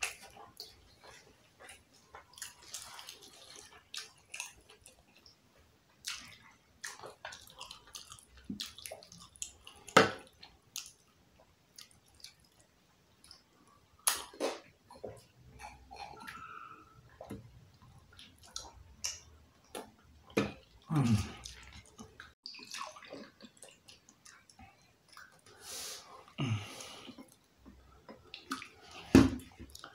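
Close-miked eating of jollof rice and fried plantain: wet chewing and mouth sounds with many scattered sharp clicks and smacks.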